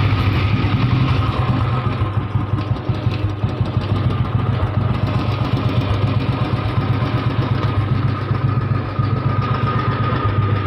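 Old Royal Enfield Bullet motorcycle's single-cylinder four-stroke engine idling steadily, with a fast even beat of firing pulses.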